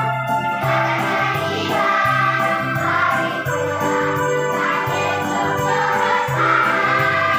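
Children's choir singing a Christmas song over electronic keyboard accompaniment with a steady bass line and jingle bells.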